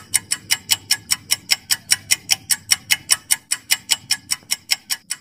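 Countdown-timer ticking sound effect: a rapid, perfectly even clock-like ticking, about six or seven ticks a second.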